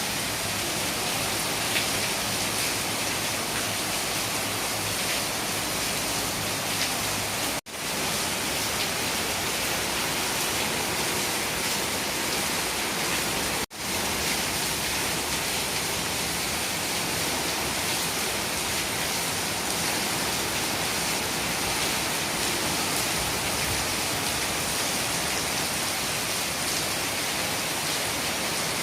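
Heavy downpour, a dense steady hiss of rain falling hard. The sound drops out for a split second twice, about eight and fourteen seconds in.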